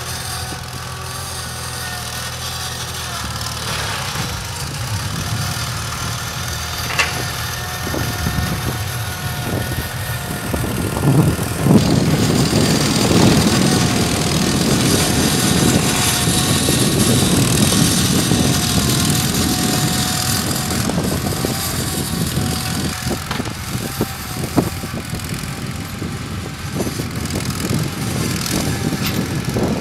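Small tractor's engine running steadily as it tows a pontoon-mounted frame across snow-covered ice, getting louder about eleven seconds in, with scattered clanks.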